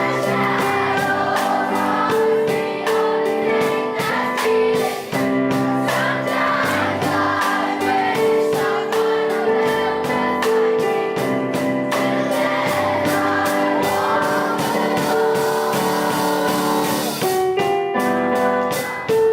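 Jazz piano trio playing: sustained piano chords over a steady drum beat, with voices singing along.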